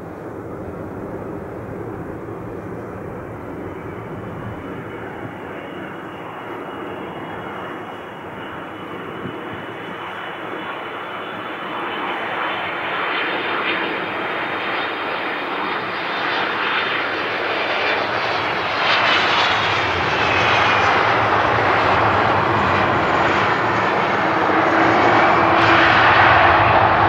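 Airbus A330-200 jet engines on approach and landing: a steady roar that grows louder as the airliner comes in, with a whine rising in pitch through the first half, and the loudest, broadest roar near the end as it rolls out along the runway after touchdown.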